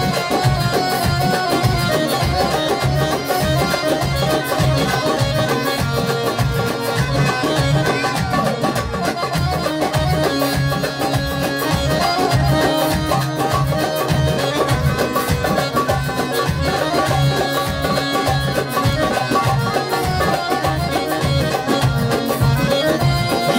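Instrumental passage of a Libyan popular song: an electronic keyboard plays the melody over a steady percussion beat.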